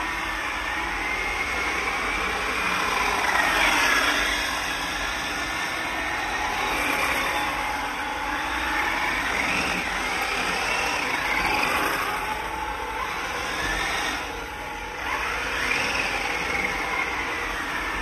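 Remote-control drift cars sliding around on polished concrete, a high whine rising and falling in pitch again and again as they speed up, slow and slide.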